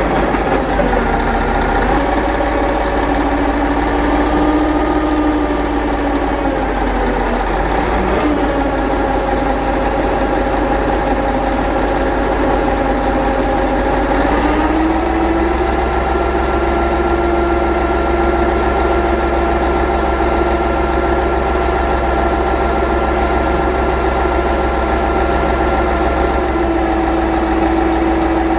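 A vehicle engine running steadily at idle. Its pitch dips slightly about a quarter of the way in, rises about halfway through, then holds steady.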